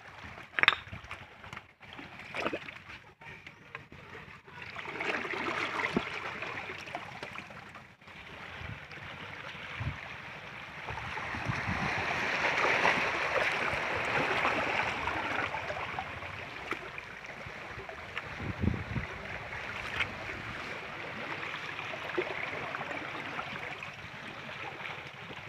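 Water rushing and splashing among rocks, rising and falling in strength, with a few knocks of the camera being handled against the stones, the loudest about a second in.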